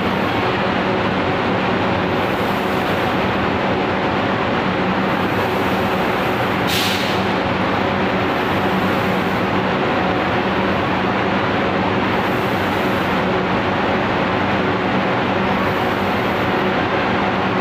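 Foundry machinery running steadily: an even mechanical noise with a constant low hum. A brief hiss cuts through about seven seconds in.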